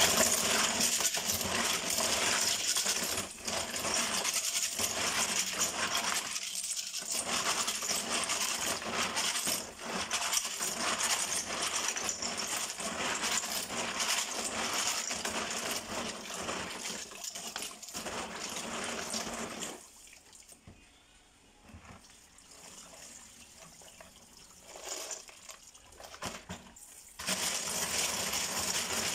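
Live aninikad shellfish being scrubbed together by hand in a plastic bowl under a running tap: a dense clatter of shells clinking against each other, over running water. The clatter drops away for several seconds about two-thirds through, then picks up again near the end.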